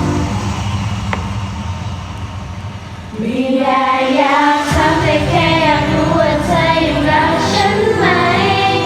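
A choir singing a Thai pop song over backing music. The first three seconds are a quieter stretch with little singing, and the massed voices come back in about three seconds in.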